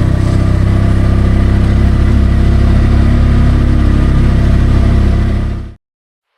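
Tuk-tuk's small engine running hard under heavy load as it climbs a steep mountain road, a loud steady drone that cuts off abruptly near the end.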